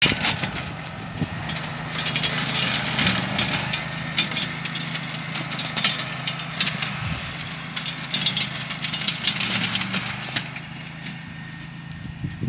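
A Canycom CMX 227 4WD ride-on brush cutter's engine runs steadily while its blade chops through dense woody scrub, with many sharp cracks and snaps of stems being cut. The sound grows fainter near the end as the machine moves away.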